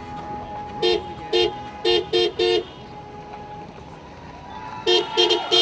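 Vehicle horn honking in short toots: five beeps about a second in, the last three close together, then a pause and three more quick beeps near the end.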